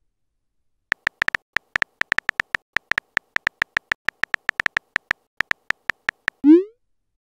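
Texting-story app's simulated keyboard typing: a fast, irregular run of short, high, beep-like ticks, one per keystroke. A quick rising swoop near the end is the message-sent sound.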